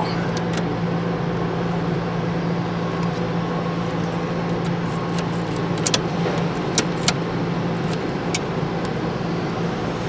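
Steady low engine-like drone from machinery running nearby, with a few light metallic clicks of the ignition lock housing and key ring being handled on the steering column, about six to eight seconds in.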